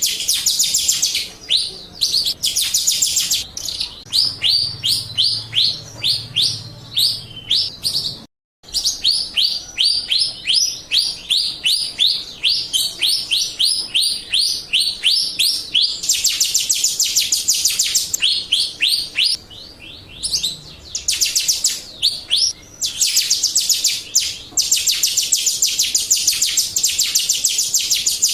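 Jalak Rio starling singing a fast, chattering song of high, quickly repeated falling notes, several a second, broken by stretches of dense buzzy trilling. The song cuts out for a moment about eight seconds in.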